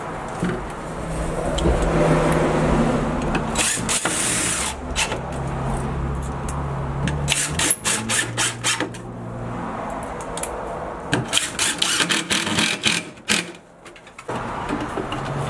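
Cordless driver driving screws into a drywall patch, its motor running in several short bursts of a second or more. A cluster of sharp knocks and clicks comes near the end.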